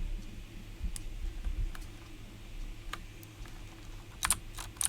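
Mechanical keyboard with clicky Gateron Blue switches: a few scattered key clicks, then a quick run of keypresses near the end.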